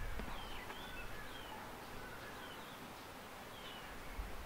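Small birds chirping in the background: short, high chirps repeating every second or so over faint outdoor ambience.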